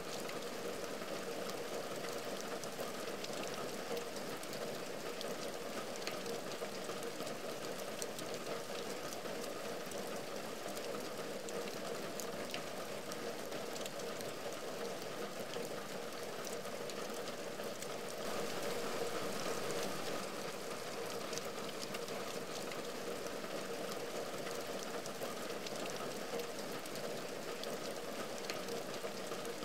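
Steady rain falling on a window and the ledge outside it, many separate drops ticking through a constant hiss. It swells a little louder for a couple of seconds about two-thirds of the way through.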